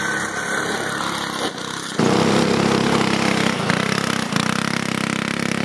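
Small go-kart engines running as karts are driven, in two clips. The second, starting about two seconds in, is louder with a stronger engine tone.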